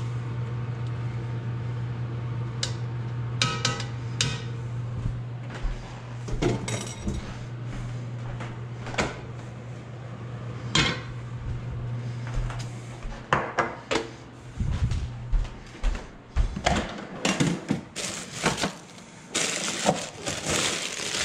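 A serving spoon clinks and knocks against a ceramic bowl and an enameled cast-iron Dutch oven, and the pot's heavy lid is set back on, over a steady low hum that stops about two-thirds of the way through. Near the end come quicker knocks and the rustle of plastic packages being moved in a refrigerator drawer.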